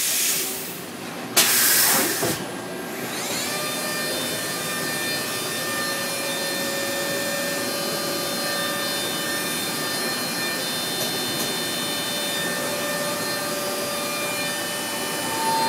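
Mazak Integrex five-axis machining centre running: bursts of hiss in the first two seconds or so, then about three seconds in a whine rises briefly and settles into a steady hum of several tones from the spindle and axis drives.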